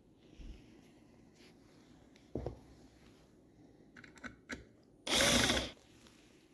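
Power drill running in one short burst of under a second, about five seconds in, after a few light knocks and clicks of handling the wood.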